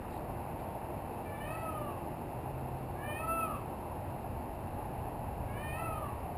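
Peacock calling three times, each a short call that rises and then falls in pitch, about two seconds apart. A steady low background rumble runs underneath.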